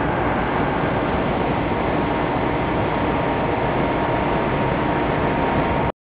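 Steady machine noise of running textile finishing machinery, blanket dryer and washing range, with a faint steady whine on top. It cuts out at the very end.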